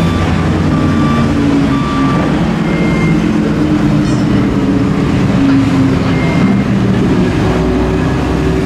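Mercedes-AMG GT Black Series's twin-turbo V8 running at low, steady revs as the car rolls slowly along at the pit-lane speed limit.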